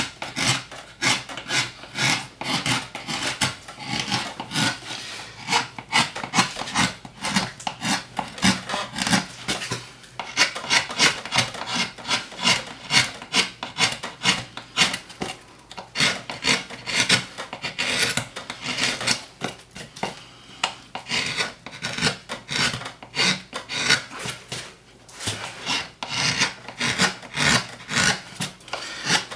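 Small hand gouge carving a woodcut block: rapid, short scraping cuts through the wood, several strokes a second, with a few brief pauses.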